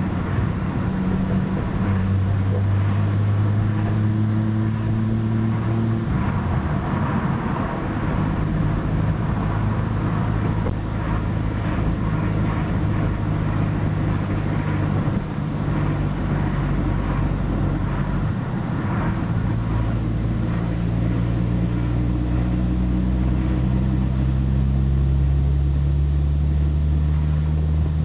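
Nissan Skyline GT-R BNR34's RB26DETT straight-six running on the road, its pitch stepping up and down with gear changes and climbing steadily near the end, over wind and road noise through open windows. Under it runs a rattle from the stock Getrag six-speed gearbox paired with a Nismo clutch, abnormally loud even while driving, which the owner fears means the gearbox needs an overhaul.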